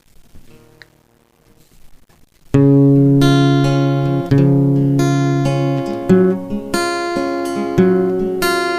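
Song intro on acoustic guitar: chords struck and left to ring, a new chord every second or so. It comes in suddenly about two and a half seconds in, after a faint start.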